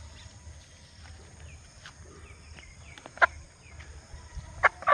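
A few short clucks from an Aseel hen held upside down for dusting, the loudest a little past three seconds in and two more close together near the end, with faint small-bird chirps in the background.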